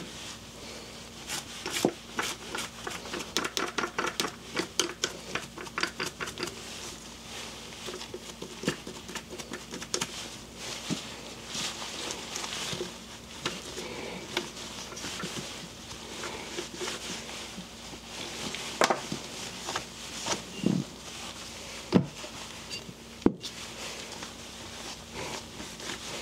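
Toothbrush scrubbing old grease off an eBike hub motor's gears in quick, rapid strokes, then a cloth wiping and rubbing over the parts. A few sharp knocks near the end as parts or tools are handled on the bench.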